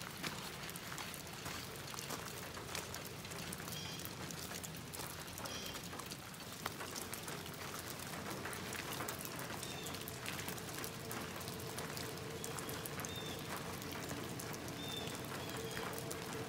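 Rain falling, a steady hiss of many small drop ticks. A few short high chirps come through now and then. A faint steady hum sets in about halfway.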